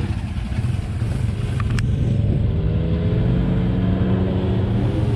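Off-road 4x4 vehicle engine running under load, getting louder and rising a little in pitch from about two seconds in as it accelerates. Two short clicks just before that.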